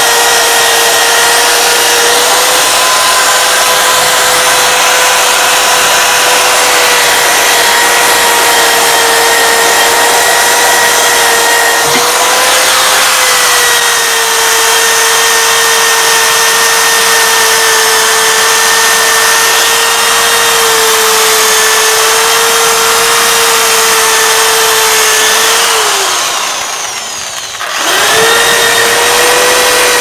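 Electric drill running steadily with a spinning brush scouring the cast-iron base of an old iron kettle, a steady motor whine over scraping noise. Near the end the motor winds down briefly, then speeds back up.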